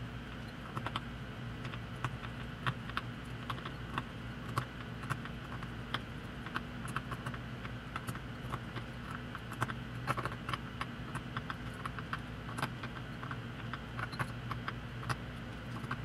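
Small irregular clicks and ticks of a hand hex driver threading screws into an RC wheel's beadlock ring, drawing the ring down to seat it over the tire bead, over a steady low hum.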